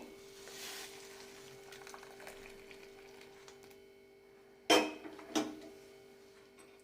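Hot herbal kadha being strained into a cup in the kitchen: a soft splash of pouring liquid at the start, then two sharp clinks of kitchen utensils less than a second apart, over a faint steady hum.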